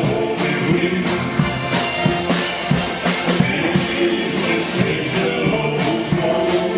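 Shanty choir performing live with several accordions, a large marching bass drum and a snare drum beating a steady rhythm under the held accordion chords and voices.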